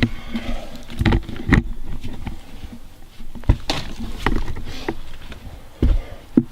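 Irregular knocks, clicks and rustling of gear being handled close to the microphone.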